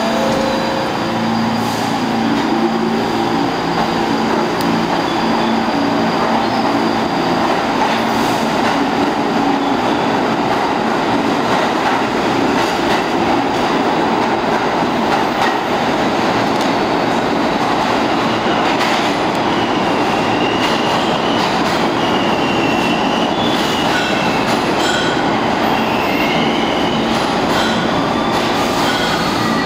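R46 New York City subway train pulling out of the station, its motors whining up in pitch in the first couple of seconds, then a loud, steady rumble of wheels on rail. High, wavering wheel squeal comes and goes in the second half.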